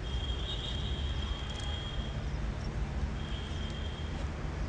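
Outdoor background noise with a steady low rumble. A thin, high steady tone is heard twice over it, first for about two seconds and then for about a second.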